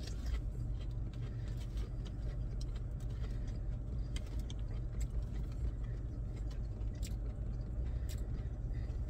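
Steady low hum inside a car cabin, with scattered faint crunching clicks of a man chewing a fried onion ring.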